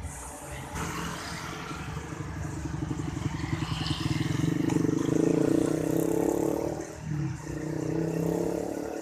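A motor vehicle's engine running with a steady throb, growing louder to a peak mid-way, dipping briefly about seven seconds in, then rising again, as it passes close by.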